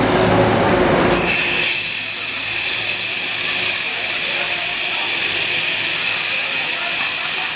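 Gas escaping from the opened valve of a small LPG cylinder: a loud, steady hiss that starts about a second in.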